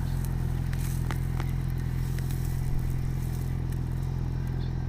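Motorcycle engine idling steadily while the bike stands parked, with a few faint clicks over it.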